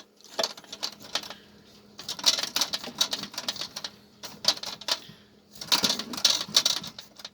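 A knife cutting slits into a raw beef brisket: quick runs of sharp clicks and taps, in four or so bursts of about a second each with short pauses between.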